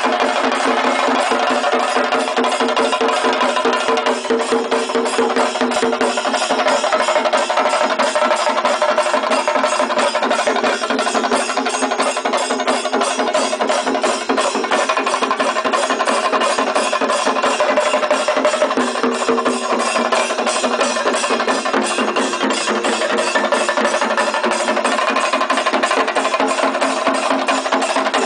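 A chenda melam ensemble: many Kerala chenda drums beaten with sticks in a fast, continuous rhythm. Loud and unbroken, with no pause in the beat.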